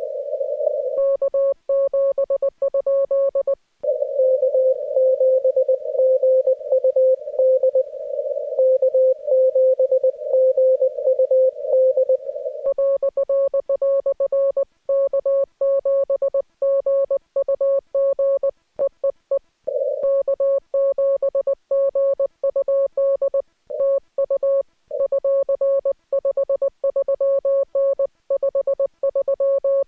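Morse code (CW) on an amateur radio transceiver: one mid-pitched tone keyed on and off in dots and dashes. For most of the first dozen seconds the tone sits in a narrow band of hiss; from about 13 seconds in the keying is clean, without the hiss.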